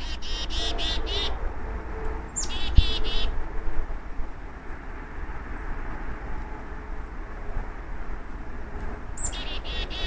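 Black-capped chickadee giving its chick-a-dee call three times: a short high opening note, then a quick run of harsh, buzzy 'dee' notes. The calls come at the start, about two and a half seconds in, and near the end. A low rumble runs underneath, with one dull thump near three seconds.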